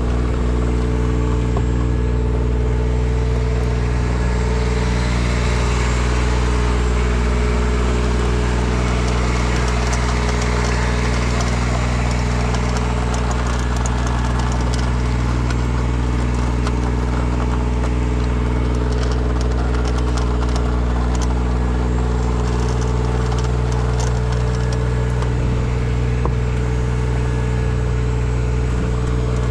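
An engine running steadily at constant speed, with a steady hiss over it.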